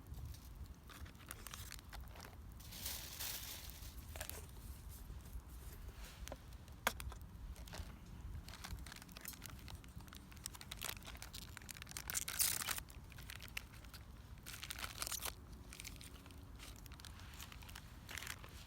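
Small wood fire crackling, with scattered sharp pops, one standing out about seven seconds in, and a few short bursts of crumpling, rustling noise.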